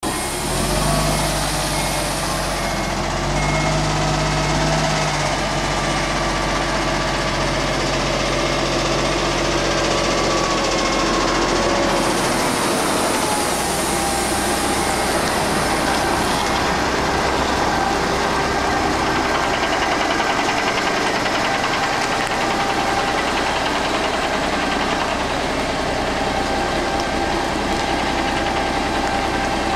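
Kenworth truck's diesel engine running steadily as the tanker rig manoeuvres at low speed, its pitch wavering slowly as the revs change.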